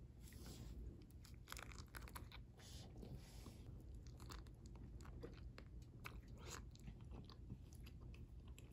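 Faint close-up eating of a starch-dusted mochi filled with yellow fruit: soft bites and chewing, heard as many short irregular clicks with a few brief hissy smacks.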